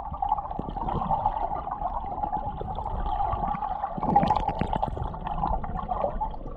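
Muffled underwater sound from a camera submerged in a clear spring: a steady gurgling wash of water around the housing. A few short knocks come about four seconds in.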